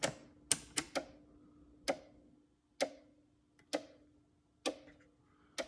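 Keurig K150P commercial coffee maker clicking on and off after being plugged in, failing to power up: a quick run of three clicks in the first second, then about one click a second, over a faint steady hum. The uploader says this fault usually comes from failed capacitors in the power supply.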